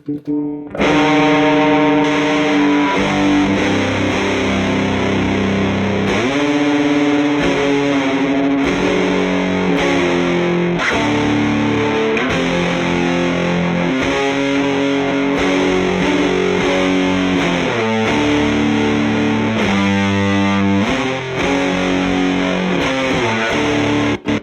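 Electric guitar played through the fuzz circuit of a telephone-shaped guitar pedal: heavily distorted, sustained chords that change every second or two, with a few sliding changes. The playing starts about a second in and stops just before the end.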